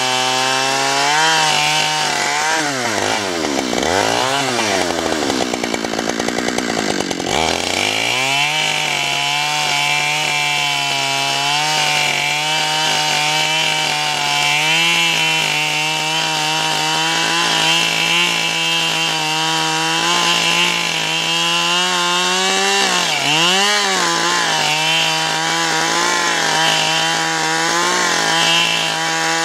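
Gasoline chainsaw ripping lengthwise along a log under steady throttle. Between about two and eight seconds in, the engine bogs down hard under the load twice, its pitch dropping deeply and climbing back; it dips again briefly about 23 seconds in.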